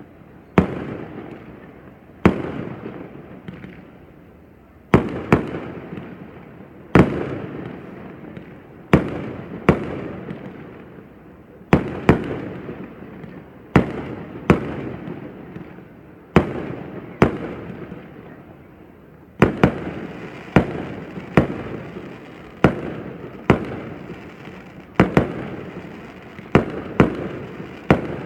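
Fireworks display: shells bursting with sharp bangs, each trailing off in a fading rumble. The bangs come every one to two seconds at first and closer together in the second half, about two dozen in all.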